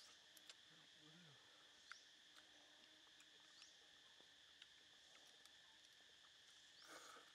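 Near silence: a faint, steady high drone of insects in the forest, with a few soft clicks and a brief rustle near the end.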